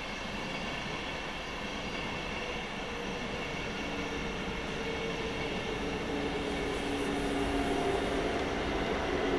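A train running on the line, getting gradually louder as it comes closer. A low hum of a few steady tones comes in about halfway through.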